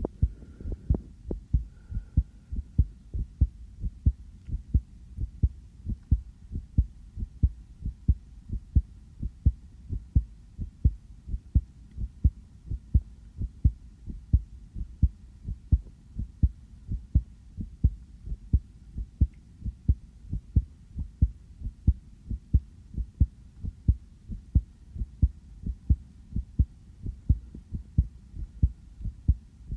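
A person's own heartbeat recorded close up: low thumps in a quick, regular rhythm, beating fast.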